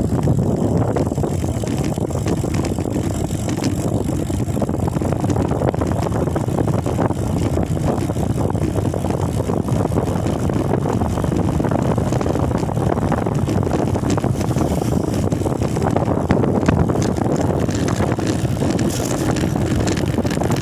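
Steady rumble of a moving vehicle, with wind on the microphone.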